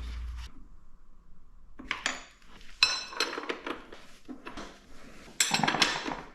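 Metal hand tools and parts clinking and knocking against each other in a series of separate strikes, some with a brief ring. The clinks are busiest near the end.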